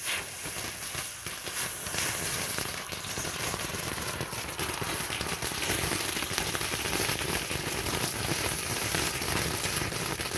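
Firework tanks burning on concrete, spraying sparks with a dense, continuous crackling hiss that grows louder about two seconds in.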